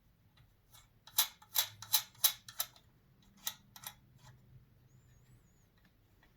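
A quick run of sharp clicks and taps, five close together and then two more, from hands fitting the red-dot finder and its screws onto the refractor telescope.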